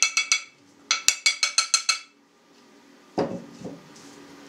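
An upturned mixing bowl rapped again and again on the rim of another bowl to knock out the last of the flour: two quick runs of ringing clinks, about seven each. About three seconds in, a duller knock as the bowl is set down on the table.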